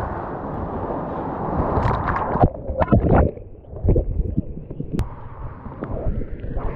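Big river whitewater rushing over the camera microphone. A couple of seconds in comes a burst of chaotic splashes and knocks as the camera goes into the aerated water. Then comes duller, churning water with scattered thumps and a sharp click: a kayaker being beaten down in a hole and swimming.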